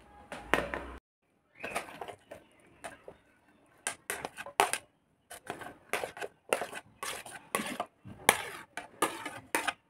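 Mango pieces being tipped off a plate into a stainless steel mixer-grinder jar: an irregular run of knocks and clatters as the chunks hit the steel and each other.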